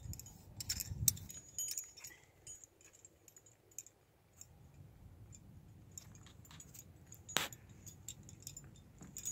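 Metal climbing hardware, carabiners and quickdraws on a harness, clinking lightly and irregularly as a climber moves on rock, with one sharper clink about seven seconds in, over a faint low rumble.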